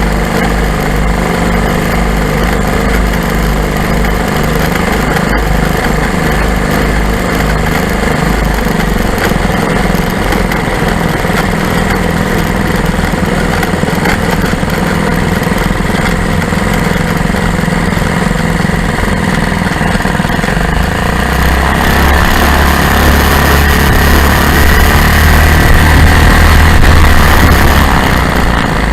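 Lazair ultralight's twin engines running steadily. They grow louder about two-thirds of the way through, then ease off near the end.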